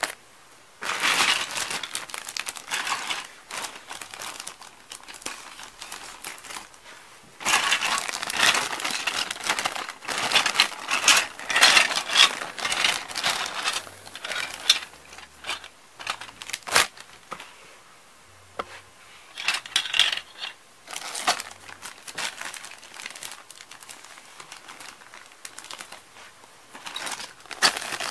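Thin clear plastic parts bags crinkling as they are handled and emptied, in irregular bursts with short pauses, the loudest stretch in the middle.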